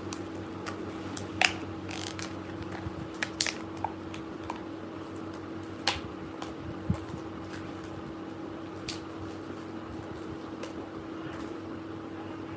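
Scattered light clicks and taps of small makeup items and their packaging being handled, several in the first few seconds and a few more later, over a steady hum.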